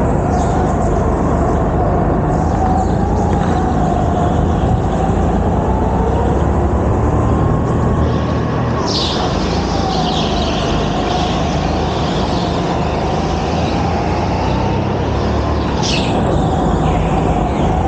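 Go-kart driven around an indoor track, heard from the driver's seat: a constant loud rumble with one motor note that rises and falls in pitch as the kart speeds up and slows for corners. Brief high-pitched squeals come about nine and sixteen seconds in.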